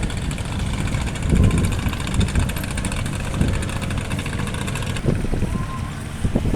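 Boat engine running steadily with a fast, even throb, with wind buffeting the microphone.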